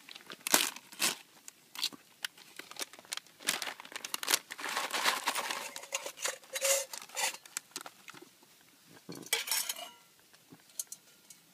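A foil-laminate MRE pouch of dehydrated granola being torn open and handled: a run of sharp crinkles and crackles, busiest about halfway through and dying away near the end.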